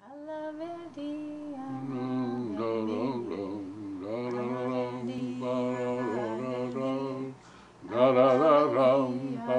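Opening music: slow singing voices over a steady held low drone note, in the manner of a chant. There is a short lull about seven and a half seconds in, then the singing comes back louder and fuller, with marked vibrato.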